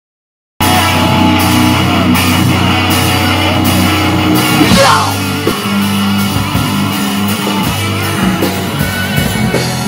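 Live heavy metal band playing loud, with electric guitars, bass, drums and violin, and singing over it. The music cuts in abruptly about half a second in, and a rising slide is heard about five seconds in.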